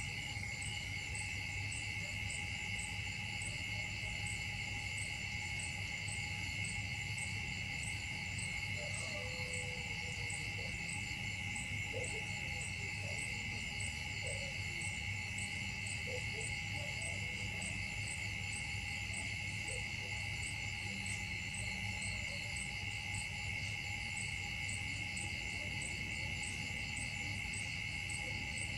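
A steady chorus of tropical insects: a continuous high buzzing drone with a fast, even pulsing above it. A few faint short calls come through around the middle.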